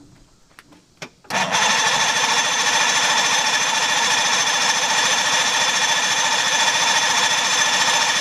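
A click, then the electric starter cranking a 1964 Evinrude 75 hp V4 two-stroke outboard motor. It begins about a second in and goes on steadily and loudly, with an even mechanical pulse. The engine does not catch, a sign of fuel trouble from dirt in the fuel system.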